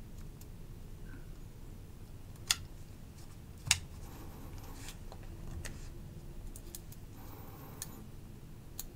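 Small metal clicks and taps of a screwdriver bit and tiny screws being worked into a folding knife's handle scales, with two sharp clicks about a second apart a few seconds in and light handling rustle.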